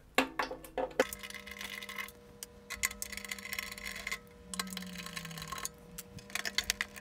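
Electric screwdriver backing out the mounting screws of a circuit board, running in several short bursts with a steady motor whine. A few clicks come before the first burst.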